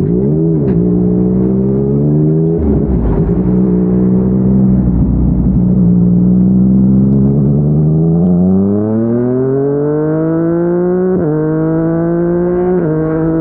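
Yamaha MT-09's three-cylinder engine through a Yoshimura R55 slip-on exhaust, holding a steady pitch while cruising. About eight seconds in it accelerates with a long rise in revs, then two upshifts near the end drop the pitch sharply.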